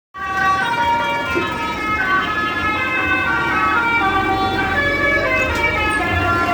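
Indonesian 'telolet' bus horn playing a tune: a run of steady horn notes that step from pitch to pitch every fraction of a second, several notes sounding together.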